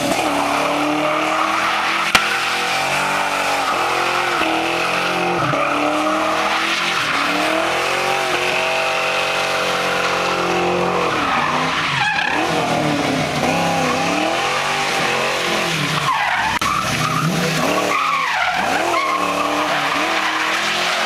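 Fox-body Ford Mustang GT's 5.0 V8 revving hard during a burnout and donuts, its pitch repeatedly rising and falling as the rear tyres spin and squeal on the asphalt. A single sharp click comes about two seconds in.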